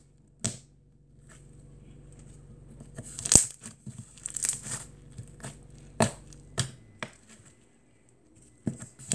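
Soft, stretchy jelly slime squished, folded and pulled apart by hand, giving irregular sticky pops, clicks and crackles, the loudest about three seconds in.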